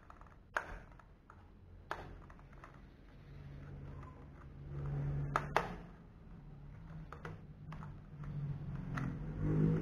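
Light plastic clicks and taps as a plastic toy birdcage is handled and turned, about half a dozen sharp clicks. A low hum swells in the middle and again near the end.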